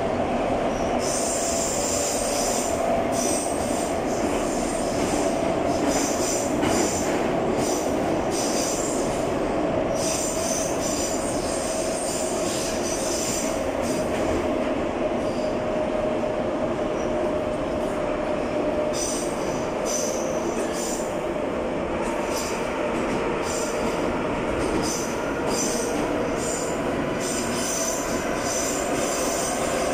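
Ezh3-type metro train running between stations, heard from inside the passenger car. A steady running rumble with a motor hum, and a high wheel squeal that comes and goes every few seconds.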